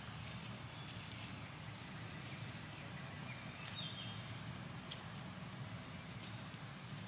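Steady, high-pitched buzzing of insects, with a couple of short high chirps about halfway through and a few faint clicks over a low steady hum.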